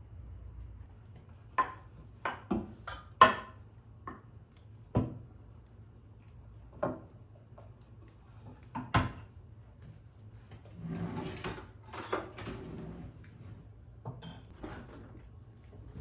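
Kitchen handling sounds: a string of sharp knocks and clatters as things such as a board are set down on a stone countertop, the loudest about three seconds in, then a longer stretch of rustling and scraping about two-thirds through.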